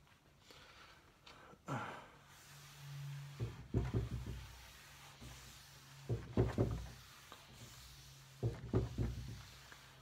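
Three short clusters of knocks and thuds, a couple of seconds apart, over a low steady hum.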